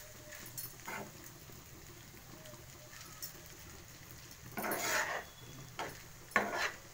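Metal spoon stirring and scraping rice and noodles in a black frying pan, with light clinks against the pan and a louder scrape or two past the middle.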